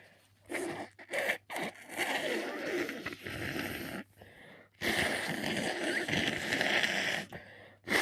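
A person with a cold making noisy nasal sounds after sneezing: a few short rasping sniffs, then one longer rasping stretch lasting a couple of seconds.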